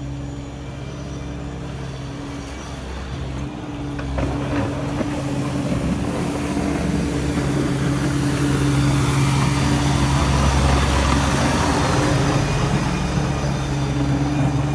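Massey Ferguson GC2300 compact tractor's diesel engine running steadily as the tractor drives up and passes close by. From about four seconds in it grows louder, with a rising hiss, and is loudest past the middle.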